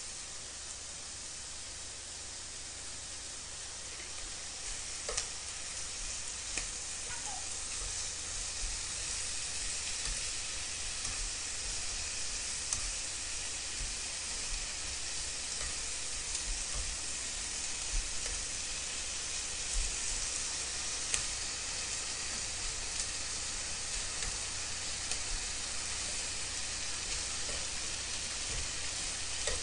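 Slices of pork belly sizzling in a frying pan, a steady frying hiss that grows a little louder over the first few seconds. Scattered sharp clicks of metal tongs against the pan come as the pieces are turned.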